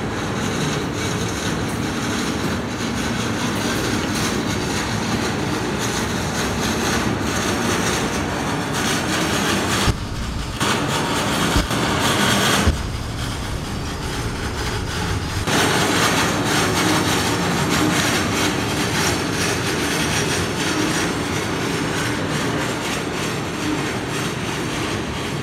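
Double-stack intermodal well cars rolling past: a steady rumble and clatter of steel wheels on rail, with two sharp clanks a little before halfway.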